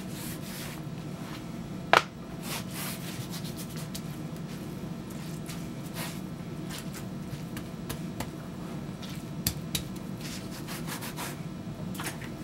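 Hands rubbing and handling wet leather, a soft scuffing with scattered small clicks and one sharp tap about two seconds in, over a low steady hum.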